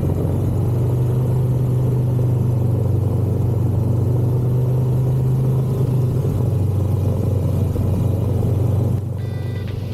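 Adventure motorcycle engine running with a steady low rumble. Near the end the level drops and music comes in over it.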